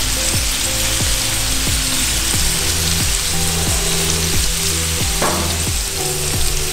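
Butter and lobster juices sizzling steadily in cast iron skillets on a grill, over background music with a steady beat.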